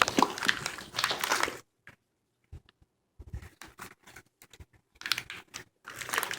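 Car wiring harness being handled: its plastic connectors and wire loom rustle and click against each other in irregular bursts, with a pause about two seconds in.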